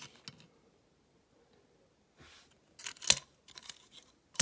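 Short clicks and taps of small die-cast model car parts being handled, with one sharp click about three seconds in, after a quiet start.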